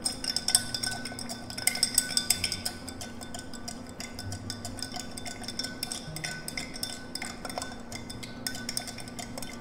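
Bar spoon stirring ice in a tall glass of bourbon: rapid, irregular light clinks of ice and metal spoon against the glass, busiest in the first couple of seconds.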